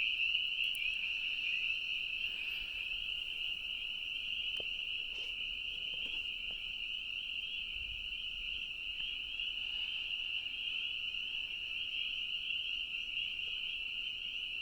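A dense chorus of spring peepers: many high, rapid peeps merging into one steady shrill band.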